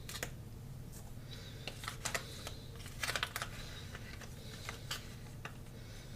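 Light clicks and taps of spice containers and lids being handled in the kitchen, with a cluster of quick clicks about three seconds in, over a steady low hum.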